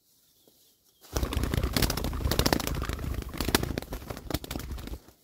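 Two doves fighting on the ground, their wings beating in a rapid, loud flurry of flapping that starts about a second in and lasts about four seconds.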